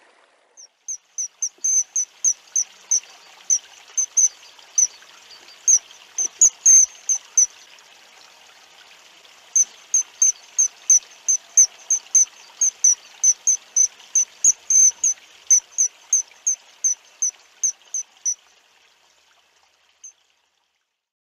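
A long run of short, high chirps, about three a second, pausing for about two seconds midway and stopping near the end, over the faint hiss of running water.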